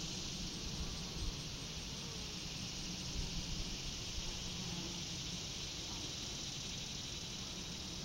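Steady chorus of meadow insects, an even high-pitched hiss with no breaks, over a faint irregular low rumble.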